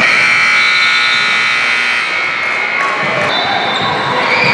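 Gym scoreboard horn sounding one long steady blast, cutting off a little under three seconds in.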